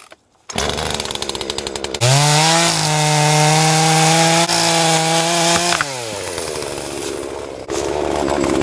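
Gas chainsaw idling, then revved to full throttle for about four seconds while cutting through a small tree trunk, then dropping back to idle. The engine rises again near the end.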